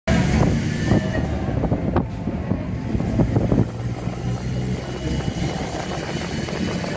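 Moving vehicle heard from inside: a steady low rumble of engine and road noise, with a few knocks and rattles in the first few seconds.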